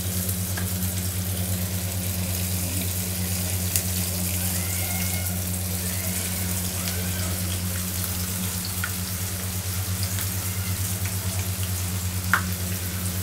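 Breadcrumb-coated pasta sticks deep-frying in hot oil in a kadai: a steady bubbling sizzle with small crackles, over a steady low hum.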